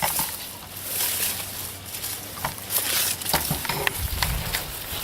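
Footsteps crunching and rustling through leaves and brush, with many irregular crackles and a low rumble about four seconds in.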